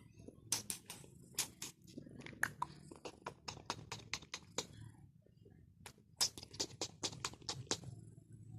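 A pet cat at close range: irregular quick clicks and ticks over a low steady rumble.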